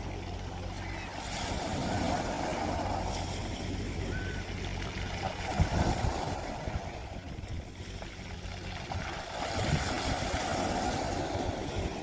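Sea water washing and surging, swelling three times about four seconds apart, over a steady low hum.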